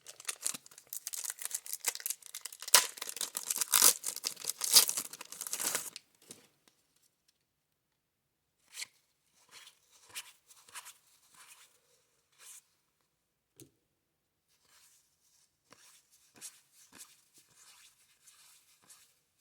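Plastic wrapper of a baseball card pack torn open and crinkled for about six seconds, a dense crackling. After that, faint scattered soft slides and taps as the cards are handled.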